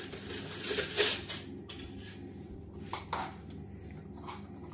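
A plastic spoon clicking and scraping against a plastic feeding bowl as baby food is stirred. There is a run of sharp clicks in the first second and a half, the loudest about a second in, then a few softer knocks.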